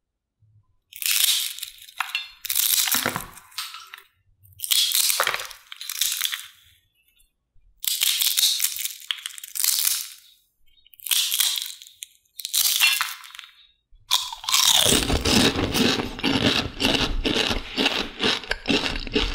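Crisp fried rolled potato chips crackling and crunching in several separate bursts as they are snapped and crushed by hand, then a denser, continuous crackle for the last few seconds.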